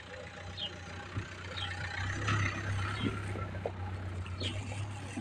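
Vehicle engine idling with a low steady hum, louder from about two seconds in. A bird chirps short high notes every second or so.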